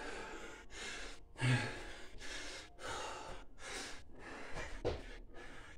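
A man breathing hard and fast, out of breath from sustained exertion: quick heavy breaths in and out through the mouth, about one and a half a second, with a louder, deeper gasp about a second and a half in.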